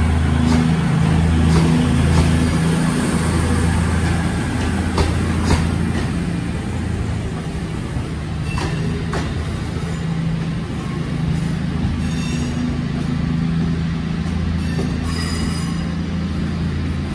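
Two coupled Class 221 Voyager diesel-electric trains pulling away, their underfloor diesel engines droning steadily, with a few sharp clicks as the wheels cross rail joints. A faint wheel squeal comes in near the end.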